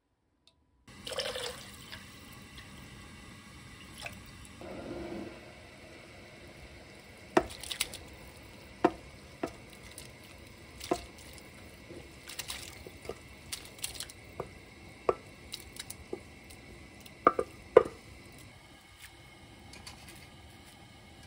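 Broth dripping and splashing in a stainless-steel pot while ingredients go in, with a run of sharp clinks and taps on the metal.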